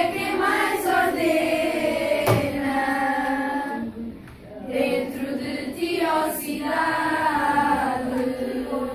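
A group of schoolchildren singing a song together in unison, in phrases of long held notes with a short break about four seconds in.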